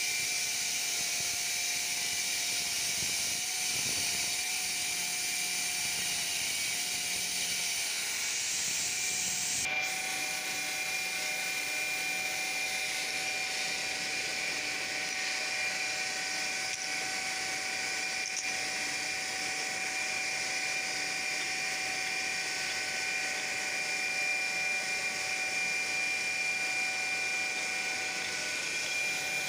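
Multi-blade wet stone-cutting saw of a mosaic cutting machine running steadily with a high whine and water hiss. About ten seconds in there is a click, and the whine steps up slightly in pitch.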